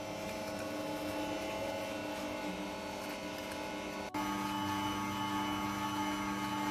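Bosch stand mixer's motor running steadily, its whisk beating eggs and sugar. The hum breaks for an instant about four seconds in and goes on slightly louder.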